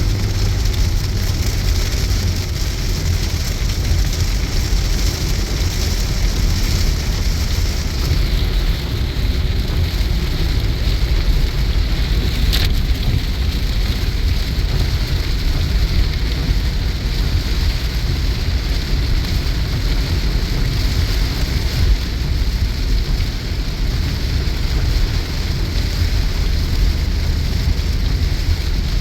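Car driving on a motorway in heavy rain: steady rain noise and tyre spray over a low road rumble, with a single brief click about twelve seconds in.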